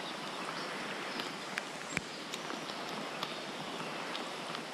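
Heavy rain falling on a stream: an even hiss of rain on the water, with scattered sharp ticks of drops striking close by.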